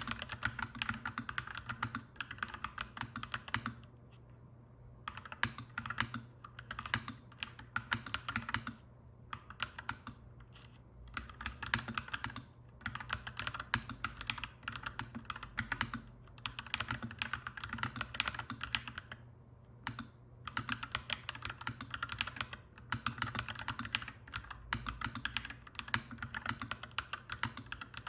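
Clacky mechanical keyboard typing: fast runs of keystrokes broken by short pauses.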